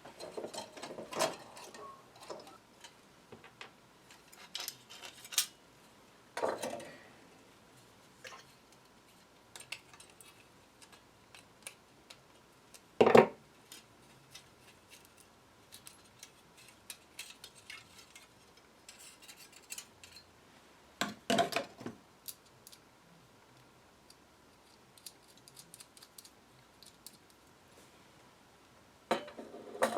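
Small metal hardware and hand tools clinking and tapping in scattered short clicks, with three louder knocks spread through, as a 1920s battery radio receiver is taken apart.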